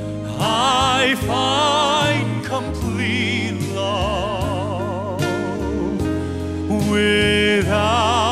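Deep-voiced male singer performing a slow ballad, holding long notes with wide vibrato over a steady instrumental accompaniment.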